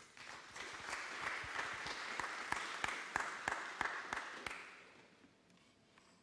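Audience applauding, with separate sharp claps standing out in the clapping. It starts right away and fades out about five seconds in.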